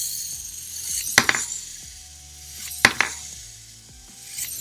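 Wind-up flipping puppy toy doing back-flips, its plastic body clacking down three times, about a second and a half apart.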